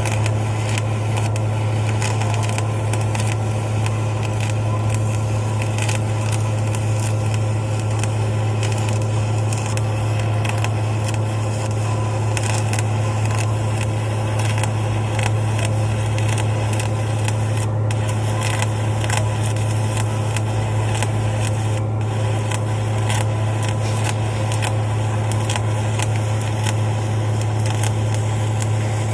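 Electric arc welding: the arc crackling steadily as a hardfacing bead is laid, over a steady low hum.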